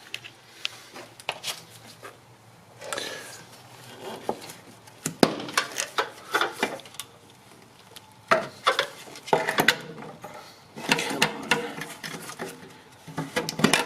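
Hand tools and metal car parts clinking and clattering, with irregular knocks and short scrapes, as work goes on at the brake master cylinder.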